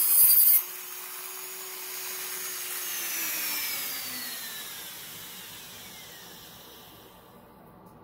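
Dremel rotary tool with a cut-off wheel grinding briefly against the metal collar of a shower valve, cutting a groove in it. The tool's motor then whines on its own and winds down, its pitch falling over the next few seconds.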